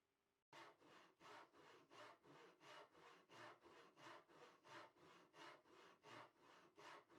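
Hand saw cutting wood in quick, even strokes, about three a second, starting abruptly about half a second in.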